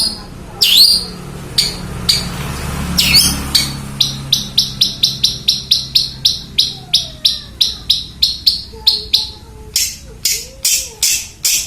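Young long-tailed shrike (cendet), just out of its spotted juvenile plumage and still learning its song, giving harsh, high-pitched calls. From about four seconds in they come as a quick, even series of about three a second, then turn slower and louder near the end.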